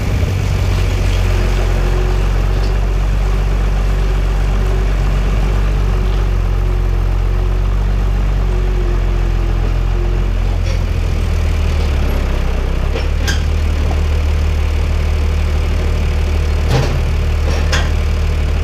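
John Deere 3650 tractor's six-cylinder diesel running steadily at low revs through its vertical exhaust stack as the tractor rolls slowly. The engine note shifts slightly about ten seconds in, and a few short knocks come near the end.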